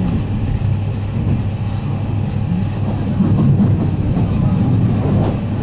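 Running noise heard inside a JR East E751 series electric train at speed: a steady low rumble of wheels on rail, with a few faint clicks from the track.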